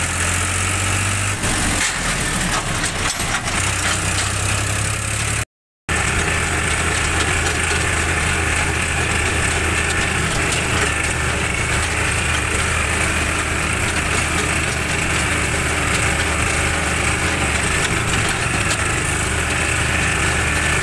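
Tractor's diesel engine running steadily under way, with a moment of silence about five seconds in.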